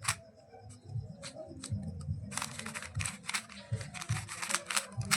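Plastic Rubik's cubes being turned by hand in a speed-solve: a run of sharp clicks and clacks, scattered at first and coming quickly from a little under halfway through.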